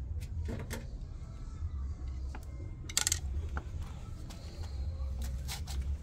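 Scattered metallic clicks and clinks of a screwdriver against the washing machine's drain filter housing and lower front frame, the sharpest about halfway through, over a low steady rumble.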